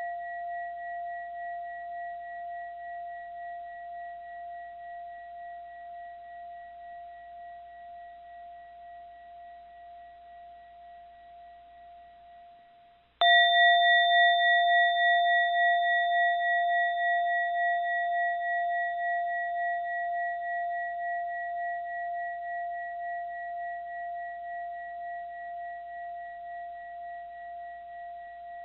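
A mindfulness bell rings and fades away, then is struck again about halfway through. The new strike rings loud and dies away slowly, its tone wavering in a steady pulse as it fades.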